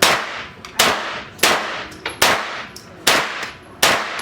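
Six gunshots fired one after another at a steady pace, a little under a second apart, each followed by a ringing echo.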